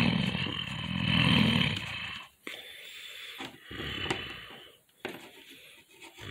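A child's growls, voicing toy animals fighting: two loud growls in the first two seconds, then quieter ones broken by short pauses, with a small click about four seconds in.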